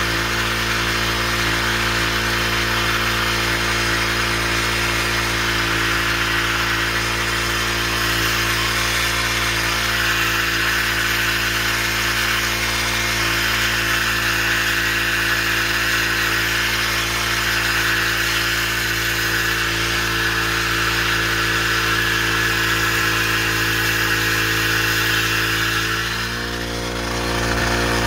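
PCW5000 portable capstan winch with a Honda GXH50 four-stroke engine running steadily under load as the rope is hauled in, dragging a felled tree. About two seconds before the end the engine note dips and shifts briefly.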